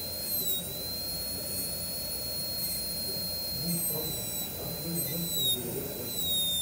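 High-speed dental handpiece spinning a diamond bur against a plastic typodont tooth: a steady high-pitched whine that sags slightly in pitch now and then as the bur takes load, notably about half a second in and again near the end.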